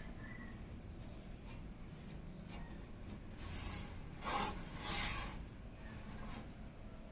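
Handling noises from assembling computer parts: a few light clicks, then three brief rubbing, sliding sounds in the middle, the loudest about four seconds in.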